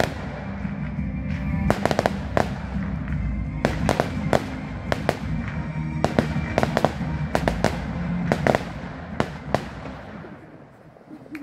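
Fireworks going off: a rapid run of sharp bangs and crackling reports over a low rumble, with music playing underneath. The bangs thin out and the sound drops away near the end.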